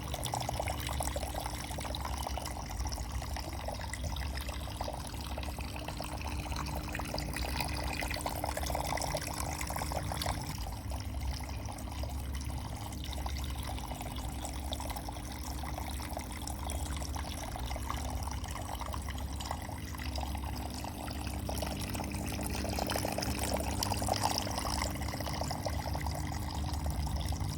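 Water trickling and splashing steadily down a decorative indoor water fountain, over a steady low hum.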